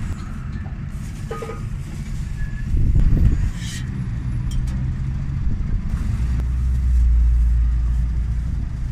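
Road traffic passing close by: a constant low rumble of engines and tyres, swelling as one vehicle goes by about three seconds in and again, heavier and longer, from about six seconds until near the end.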